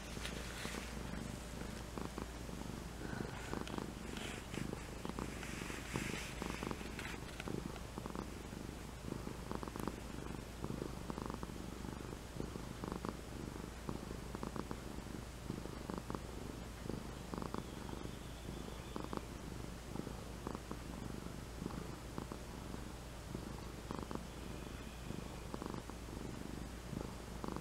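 A white-and-ginger domestic cat purring without a break as it is stroked, a steady low rumble that pulses about once a second.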